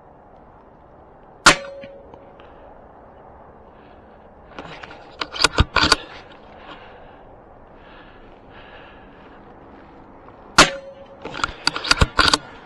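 Dynamic Air Rifles DAR Gen 2 .25-calibre PCP air rifle firing: a sharp crack with a brief ringing tone, twice, about nine seconds apart. Each shot is followed within a few seconds by a quick run of clicks and knocks.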